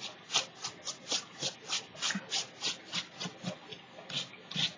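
Red acrylic paint being spread over masking tape with a short hand tool: quick back-and-forth strokes, about three a second, each a short scratchy rub, with a slightly louder stroke near the end.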